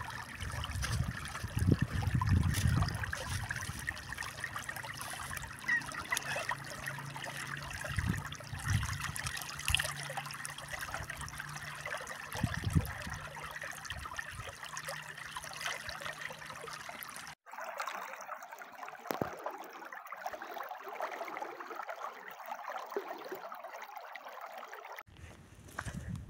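Shallow stream of water running over stones in a rocky wadi bed, a steady trickling ripple. About two-thirds through it cuts abruptly to a duller, thinner flow.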